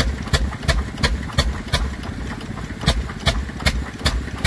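1929 National 5V stationary engine running steadily after its start, with sharp, even exhaust beats about three a second. It is driving a 3-inch centrifugal pump, and water is splashing from the outlet pipe into the tank.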